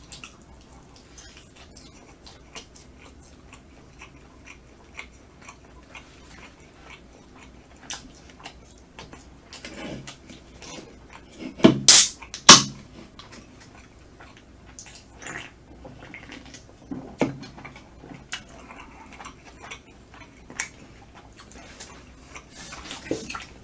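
Close-up chewing of smoked chicken, with small wet clicks throughout. About halfway through, an aluminium soda can is cracked open with two sharp pops half a second apart.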